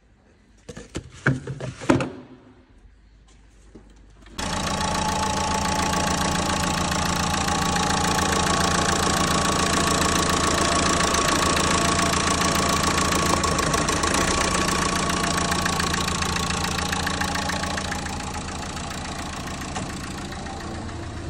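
A few clicks and knocks, then about four seconds in the Renault Megane Scenic's engine starts at once and runs steadily, easing slightly near the end. It is running well after its faulty number 2 injector was replaced with a refurbished one.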